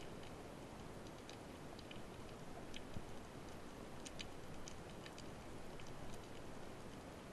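Underwater ambience while diving: a steady hiss with scattered, irregular sharp clicks, a few louder ones about three and four seconds in.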